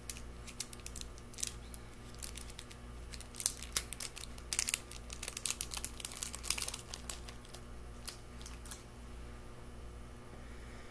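Crinkling and crackling of small jewelry packaging handled in the fingers while a pair of earrings is unwrapped: a run of quick, irregular crackles, busiest in the middle and dying away near the end.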